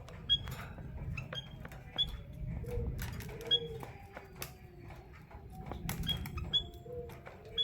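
Small caged finches, a canary and a white-headed munia, giving short high chirps every second or so, among scattered clicks and taps of the birds moving about the cage.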